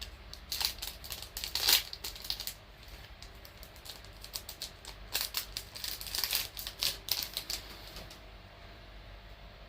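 Foil trading-card pack wrapper being torn open and crinkled, in two spells of quick crackling: one starting about half a second in, another from about five seconds in.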